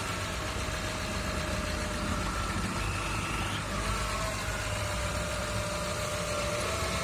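Honda Civic engine idling with a steady high whine. The whine comes from the alternator area, and its pitch shifts slightly about three to four seconds in as the steering is turned. The owner cannot tell whether it is tied to the recently replaced power steering pump.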